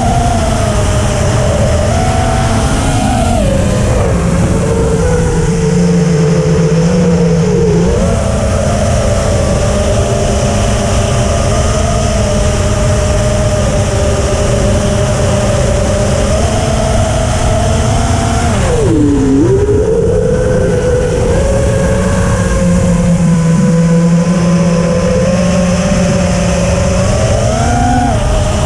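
FPV quadcopter's four EMAX RSII 2206 2700KV brushless motors and propellers buzzing, heard from the onboard camera over a steady rush of air. The pitch dips sharply twice, about four seconds in and again near twenty seconds in, as the throttle is eased off, and climbs back as it is reapplied.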